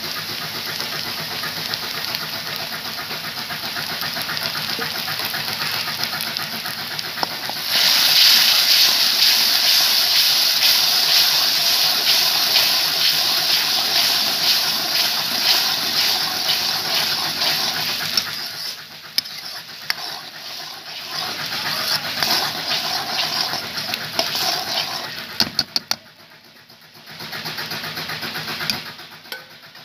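Onions and saag paste sizzling in hot oil in a large kadhai. About eight seconds in the sizzle turns much louder and hissier as water hits the hot pan and boils off in steam. It drops away briefly twice near the end.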